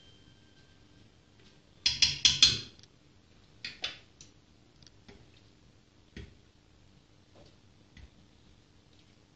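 A metal utensil clattering against a stainless steel stockpot as boiled meat is lifted out: a loud cluster of quick clinks about two seconds in, two more a little after, then a few light taps. A faint steady hum runs underneath.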